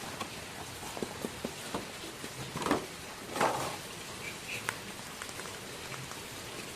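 Plastic action figures and their packaging being handled: a few light clicks and two brief rustles, a little under three and three and a half seconds in, over a steady background hiss.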